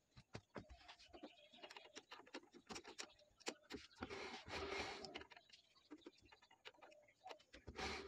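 Honda Aviator scooter's rear wheel spun by hand and turning freely: faint irregular clicks, with a brief brushing rush about four seconds in as a gloved hand pushes the tyre.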